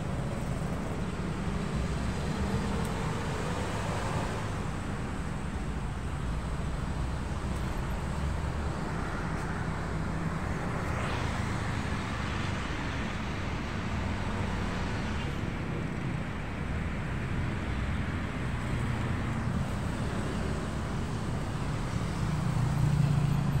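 Road traffic, a steady rumble of cars and motorbikes with swells as vehicles pass.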